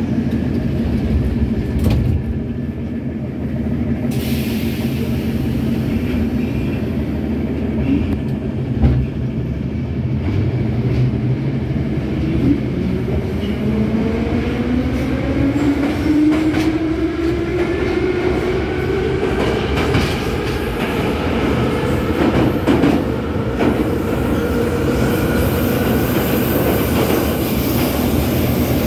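Metro train heard from inside the car as it pulls out of a station and accelerates: the traction motors set up a whine that rises in pitch from about twelve seconds in and then levels off, over the steady rumble and clatter of the car.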